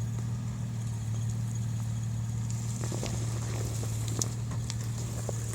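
Vehicle engine running steadily with a low hum, crawling off-road, with scattered clicks and crunches from about halfway in.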